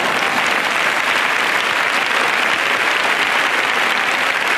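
A large audience applauding, a steady dense clapping that holds at the same level throughout.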